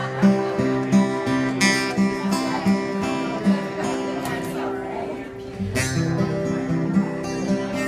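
Acoustic guitar played solo, strummed chords with repeated low notes in a steady rhythm of about two a second, and a brighter full strum twice.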